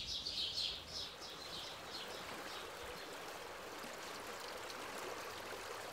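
Steady rushing of a mountain river, an even noise without rise or fall. A few high bird chirps fade out over the first second or so.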